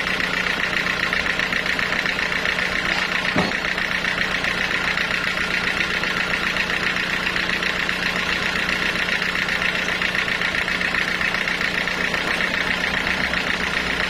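Band sawmill running steadily without cutting, a loud mechanical drone with a fast, even pulsing. A single knock comes about three and a half seconds in.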